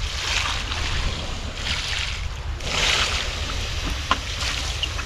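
Water poured from a bucket onto the embers of a cooking fire to put it out, hissing in several surges, over a steady low rumble of wind on the microphone.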